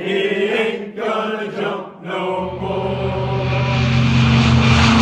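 A group of voices sings the end of a chorus line for about two seconds. Then the low, steady drone of a C-47's twin radial engines starts and grows louder as the plane takes off.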